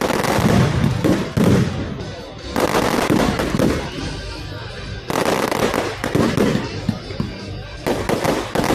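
Fireworks crackling in rapid, dense bursts, several times, each burst starting suddenly. Music and voices are faint behind them.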